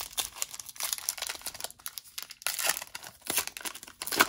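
Foil wrapper of a Panini Contenders hockey card pack being torn open and crinkled by hand: a dense run of crackles and rips, the sharpest one near the end.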